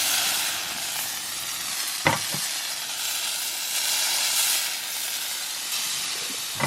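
Sausages sizzling steadily in a hot frying pan, cooked crispy to the point of smoking. There is one short knock about two seconds in.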